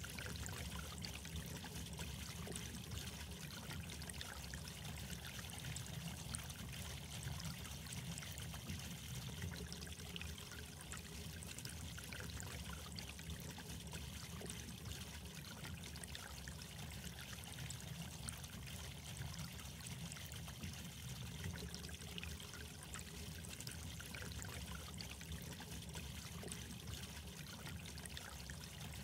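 Water trickling steadily, an even running-water sound with a low rumble underneath and no breaks.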